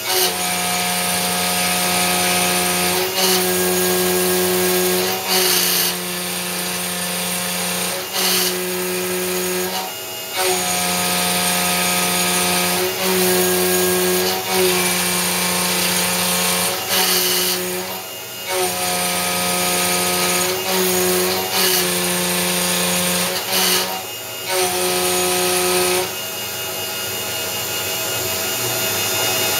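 Belt-drive IH RF-45-style CNC mill spinning a 5/8-inch two-flute end mill at about 6,000 rpm and high-speed face milling an aluminium plate at about 90 inches per minute: a loud, steady cutting whine, broken every two to three seconds by short dips as the cutter changes passes. Near the end the cut finishes and only the spindle runs on.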